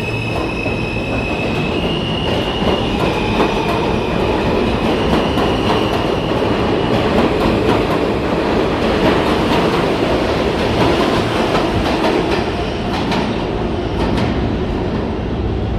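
New York City subway train running along the track through the station, its wheels clattering over the rail joints. A high steady whine sounds over the rumble for the first several seconds.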